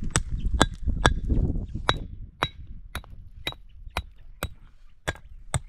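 Steady hammer blows, about two a second, each with a short metallic ring.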